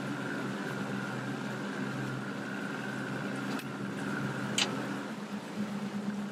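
Boat motor idling with a steady hum. Its higher tone drops out about five seconds in, and there is one brief click shortly before.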